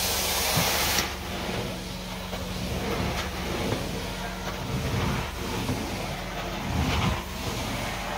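Carpet-cleaning extraction wand spraying hot water with a hiss, which cuts off about a second in. After that the steady drone of the cleaning machine's vacuum and motor carries on as the wand is drawn across the carpet.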